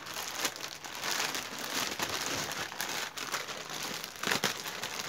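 Clear plastic packaging bag crinkling as hands handle it and pull it open: a continuous run of crackles with a few sharper crunches.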